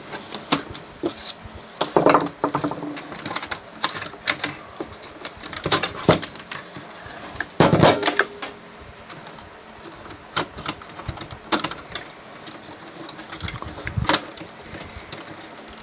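Irregular clicks, taps and a few louder knocks of small plastic and metal parts of a DVD player being handled and fitted together.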